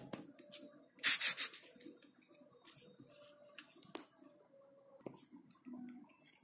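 Fingers rolling modelling clay on a plastic plate: a short burst of rubbing about a second in, then scattered small taps and clicks.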